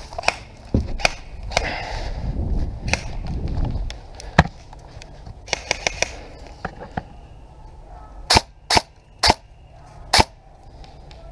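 Airsoft rifle firing four single shots, sharp cracks a half second to a second apart in the last few seconds. Before them, scattered clicks and a low rumble of movement and handling as the player shifts to cover.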